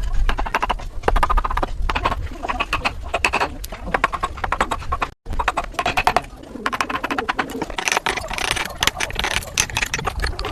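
Hand tools working wood: a run of uneven knocks and taps, with the sound cutting off abruptly about five seconds in and starting again.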